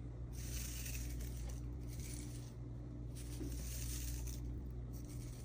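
Dried peppermint leaves rustling and crackling as they are put into a drawstring scent pouch, in a few stretches of about a second each, over a low steady hum.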